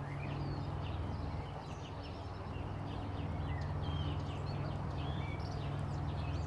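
A steady low hum runs throughout, with small birds chirping now and then above it.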